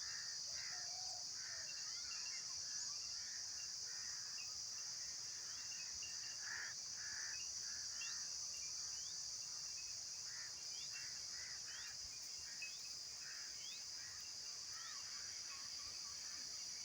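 A chorus of insects keeps up a steady, unbroken high-pitched drone. Scattered short, lower calls and brief rising chirps come and go over it.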